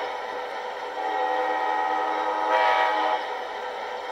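The MTH Premier Amtrak Genesis model locomotive's speaker plays its custom horn, a sample of a real locomotive horn, in long blasts of the grade-crossing sequence. The chord fades back, swells again about a second in, and drops near the end.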